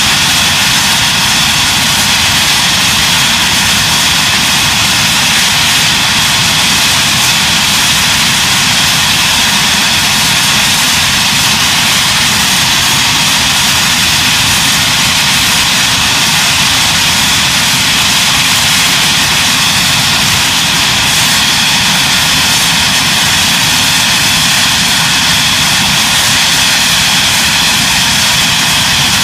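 Jet aircraft engines running steadily and loudly, with a constant high whine over a broad rush.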